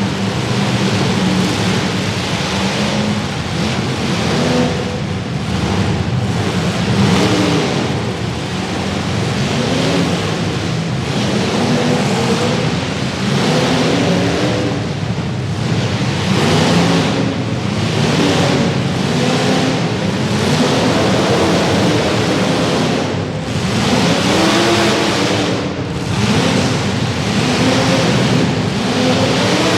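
Demolition derby cars' engines revving hard and dropping back again and again over a dense, loud rumble of engine noise.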